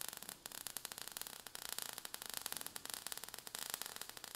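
Quiet crackling and fizzing of a falling-sparks sound effect, a dense run of irregular tiny clicks.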